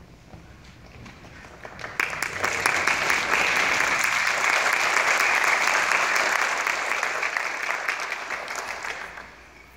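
Small audience applauding, starting about two seconds in, swelling quickly to a steady clatter of claps and then dying away near the end.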